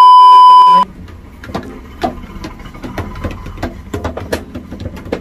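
A loud censor bleep: a steady 1 kHz tone lasting just under a second. After it comes an irregular string of sharp knocks and clatter over a low hum.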